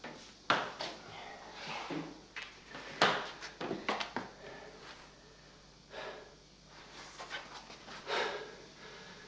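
Scattered knocks and rustles of people moving about a small room, with a few short breathy sounds.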